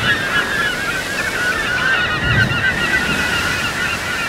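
A large flock of birds calling over one another in many short, overlapping squawks, over a steady rushing wash like surf.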